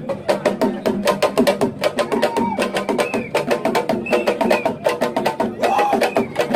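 Fast, dense percussion of dry, sharp clacks struck several times a second, with voices singing over it.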